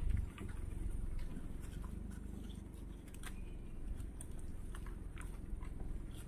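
Gaur cropping and chewing grass: scattered soft crunches and clicks, irregular, over a low steady rumble.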